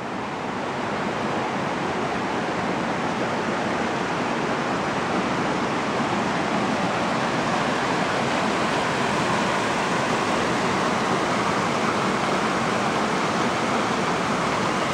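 Creek water rushing over small cascades and rapids down layered rock into a pool: a loud, steady rush that swells a little over the first couple of seconds.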